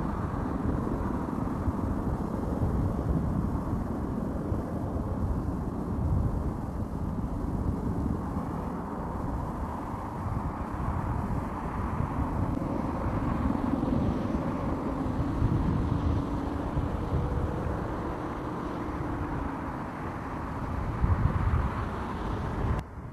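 MH-60L Black Hawk helicopter in flight, its rotors and twin turboshaft engines making a steady, dense rumble.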